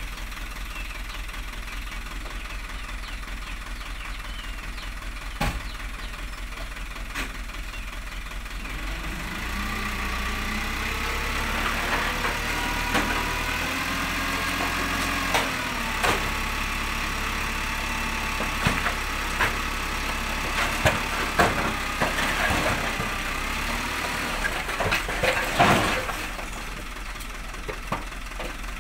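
Dump truck's diesel engine running while its hydraulic hoist tips the loaded bed. About nine seconds in, the engine picks up and a whine joins it. Scattered knocks and thuds come from the tipping bed and the spilling soil, loudest a few seconds before the end.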